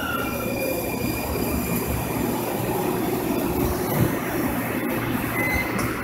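Siemens S70 light rail cars rolling past along the station platform: a steady low rumble of wheels on rail, with a faint high-pitched whine over it in the first couple of seconds.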